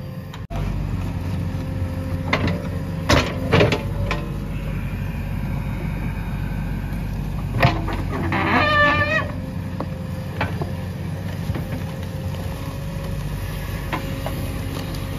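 JCB 3DX Plus backhoe loader's diesel engine running steadily while its bucket digs into brick rubble and soil, with several sharp knocks from the bucket on broken bricks, most of them in the first four seconds. A rooster crows once, about eight and a half seconds in.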